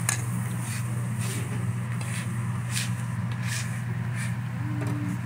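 Steady low hum of dining-room background noise, with a few light, sharp clinks of cutlery and dishes.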